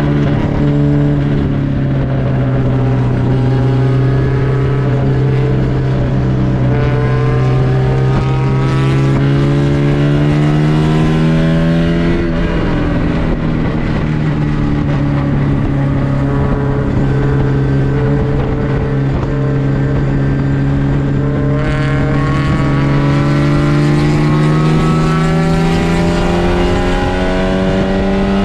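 MGB race car's four-cylinder B-series engine heard from the cockpit, pulling hard with the revs climbing slowly. The revs drop sharply about half a second in and again about twelve seconds in, at gear changes, and climb again after each.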